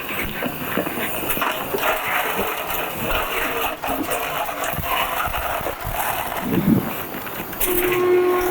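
Lawnmower being wheeled across a garage floor, with uneven rattling and small knocks. Near the end a steady high whistling tone starts.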